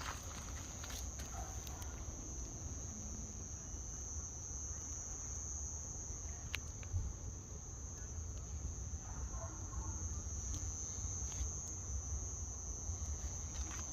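Steady high-pitched insect chirring over a low rumble, with a few faint clicks, one sharper about six and a half seconds in.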